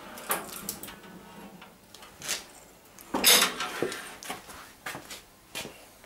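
A hydraulic lift table carrying a steel cabinet, its release handle worked to lower the load: scattered metallic clicks and knocks, with a short rushing scrape about three seconds in.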